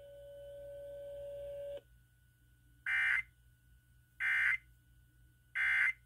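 Emergency Alert System end-of-message signal played through a radio's speaker: three short, harsh digital data bursts about a second and a half apart, marking the close of the monthly test. It is preceded by a steady tone that cuts off about two seconds in.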